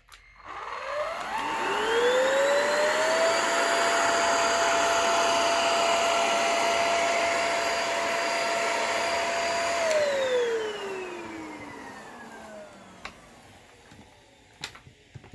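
Cordless vacuum cleaner fitted with a bristle brush head. Its motor spins up with a rising whine and runs steadily for several seconds, then winds down with a falling whine. A couple of sharp clicks follow near the end.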